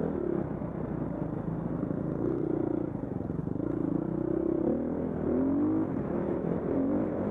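Husqvarna single-cylinder dirt bike engine heard from the rider's own bike, revving up and down over and over as the throttle is worked along a bumpy whoop track.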